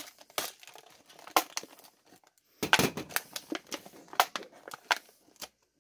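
Hard plastic clamshell package being cut open with a utility knife and worked apart by hand: crackling, crinkling plastic with sharp clicks and snaps. There is a short lull about two seconds in, then a louder, busier spell that stops just before the end.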